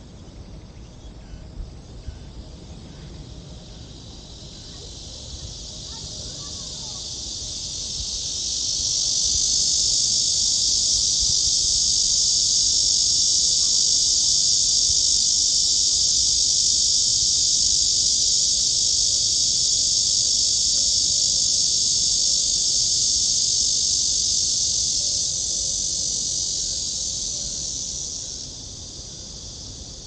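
Cicadas singing: a loud, high, continuous buzz that swells over the first several seconds, holds steady, and dies away near the end.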